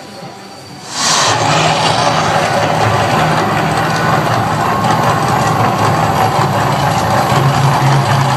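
The Mirage volcano attraction's gas fire effect bursting on about a second in with a sudden loud whoosh, then a steady rushing noise of flames, over a low hum.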